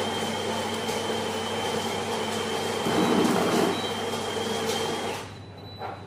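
Built-in coffee grinder of a Cafelffe EM653-3C espresso machine running, grinding coffee into a portafilter: a steady whirring with a thin high whine, a little louder about three seconds in, stopping just after five seconds. A short knock follows as the portafilter is set down.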